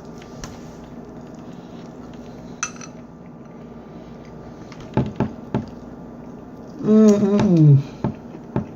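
A few sharp clicks of cutlery against a plate, then a short voice sound that falls in pitch about seven seconds in, over a steady low hum.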